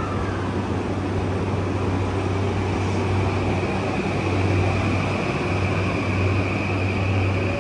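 JR East E235-series electric train pulling out of a station, its Toshiba hybrid SiC VVVF inverter and traction motors whining as it accelerates, over a steady low hum of the running gear. A high whine holds steady and rises slightly in pitch as the train gathers speed.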